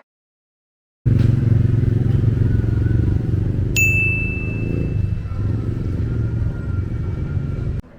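A motor vehicle's engine running steadily with a fast, even pulse. A sudden high ring starts midway and fades slowly.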